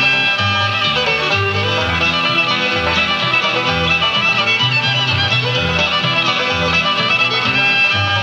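Bluegrass-style music led by a fiddle, with guitar and a bass line moving about two notes a second.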